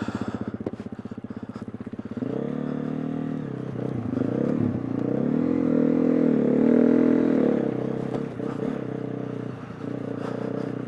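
KTM 350 EXC-F dirt bike's single-cylinder four-stroke engine, ticking over at low revs for about two seconds, then pulling away with its pitch rising and falling as the throttle is opened and closed.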